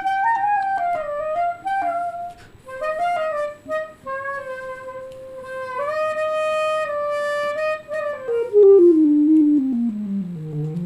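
Clarinet playing a slow melody, one note at a time, with a note held for a couple of seconds midway, then a long downward slide to a low note near the end.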